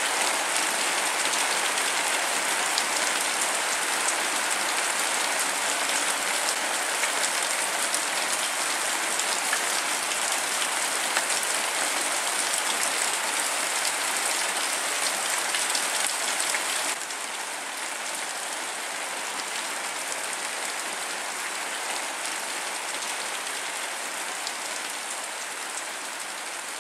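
Steady rain falling, a dense, even hiss; about two-thirds of the way through it steps down a little quieter and carries on.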